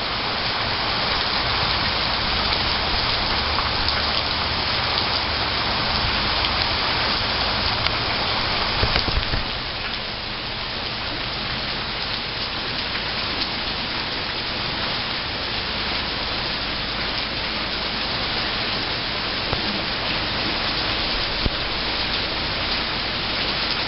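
Heavy rain falling steadily, an even dense hiss with scattered drop ticks, slightly louder for the first nine seconds or so.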